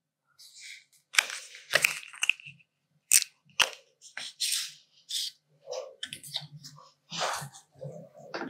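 Handling of a plastic squeeze tube of acrylic paint: several sharp clicks and short crinkling rustles as the tube is capped and set back into a clear plastic stand.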